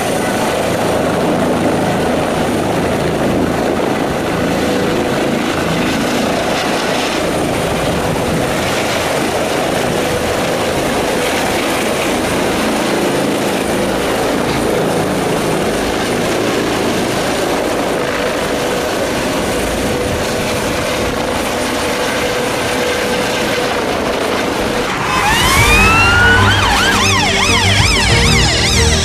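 Air ambulance helicopter's engines and rotor running steadily as it hovers and climbs away. About 25 seconds in, it is cut off by emergency-vehicle sirens wailing, several overlapping rising and falling tones.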